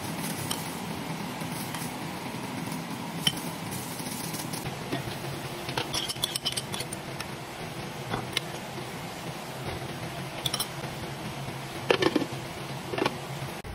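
Clinks and clanks of cookware in a clay pot: a metal spoon knocking against the pot, then a pot lid being handled, with two louder clanks near the end. A steady low hum runs underneath.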